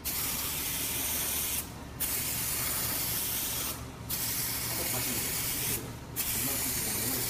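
Aerosol can of clear coat spraying onto a car bumper: four hissing passes of about a second and a half each, with short breaks between, as the clear coat is laid on in slow strokes.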